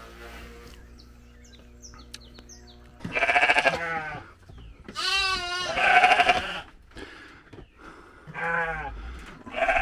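Sheep bleating, about five calls starting some three seconds in, one of them with a strong quavering wobble.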